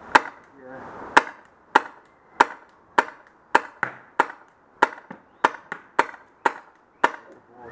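Tippmann X7 Phenom paintball marker firing about a dozen single shots in steady succession, roughly one every half second to second, each a sharp pop.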